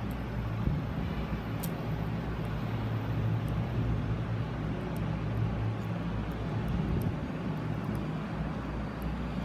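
Steady low mechanical hum over a constant background hiss, with a few faint ticks.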